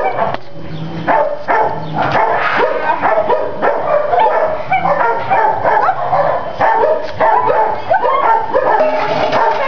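Many shelter dogs barking at once, short overlapping barks and yelps following one another with no break.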